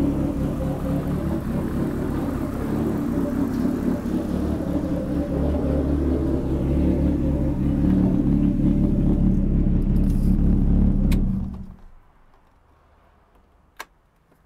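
Forged 2.1-litre SR20 turbo four-cylinder in a Nissan 180SX running steadily, then shut off almost twelve seconds in, after which it cuts out suddenly. A couple of sharp clicks from the dash toggle switches come around the shut-off.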